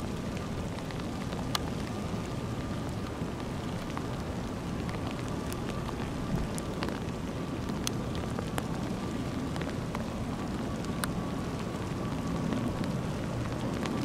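ATR turboprop airliner on approach, heard at a distance: a steady engine drone with a faint high steady whine, under a constant hiss of wind, with scattered sharp ticks.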